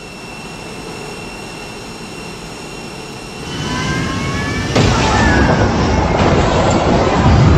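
Jet airliner engines running with a steady rushing whine, rising in pitch as they spool up about three and a half seconds in. About five seconds in, a sudden, much louder rushing noise of the crash and fire takes over.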